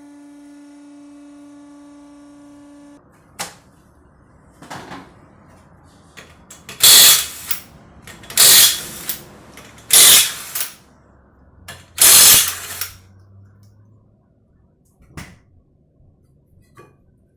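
A steady tone for the first three seconds, then an impact wrench firing in four short, loud bursts, loosening the bolts that hold the strut to the hub, with a few tool clicks between.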